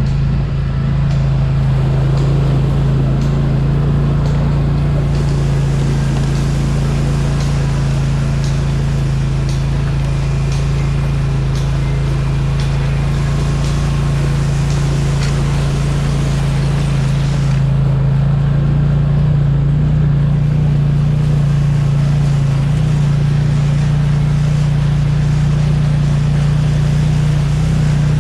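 Off-road vehicle engine running steadily under way, with a steady drone that steps up a little in pitch about two-thirds of the way through. Faint clicks and rattles come through in the middle stretch.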